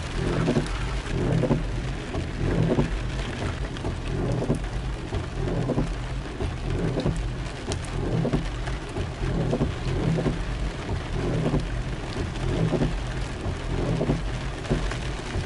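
Heavy rain falling, with a low rumble that swells and fades about once a second.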